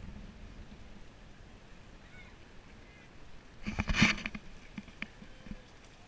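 Faint muffled rumble, then about four seconds in a short burst of water splashing and sloshing close to the microphone, followed by a few light knocks.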